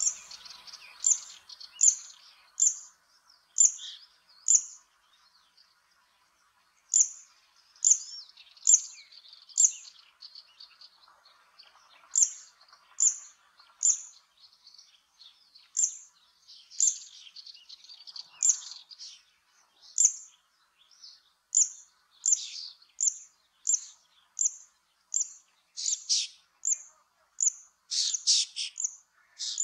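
Zitting cisticola singing: a long series of short, sharp, high 'zit' notes, repeated roughly once a second. There is a pause about five seconds in, and the notes come faster near the end.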